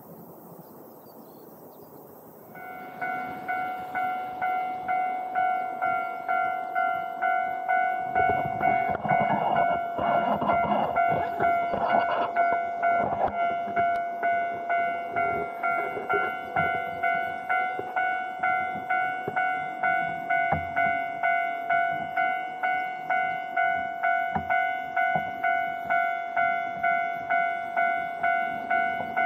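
A Japanese level-crossing alarm starts about two and a half seconds in: an electronic bell dinging steadily about twice a second. A Keihan electric train runs past from about eight to fourteen seconds in, a rush of wheels on the rails, while the bell keeps dinging. Faint insect buzz comes before the alarm starts.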